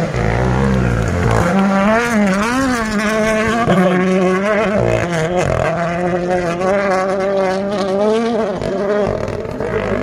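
Toyota GR Yaris Rally1 rally car's engine running flat out, its pitch rising and falling repeatedly with throttle and gear changes.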